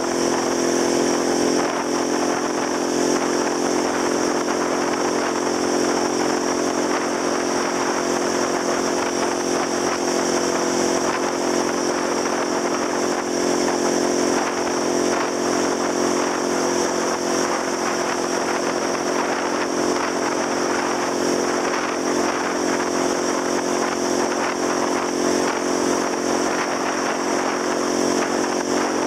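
Motor scooter engine running at a steady cruising speed while riding, its drone holding an even pitch, under a constant rush of wind and road noise.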